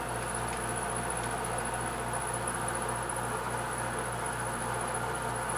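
Milling machine spindle turning a 7/8-inch end mill at about 400–500 RPM, side-milling the end of a metal block. It makes a steady machine hum with a thin, high, constant whine above it.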